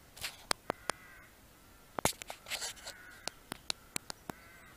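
Crows cawing several times, short harsh calls, the loudest about two seconds in, mixed with a scatter of sharp clicks.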